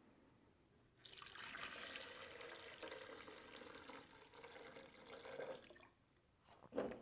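Hot black coffee poured from a glass jar into a blender jar: a faint, steady splashing stream that starts about a second in and stops a little before the six-second mark.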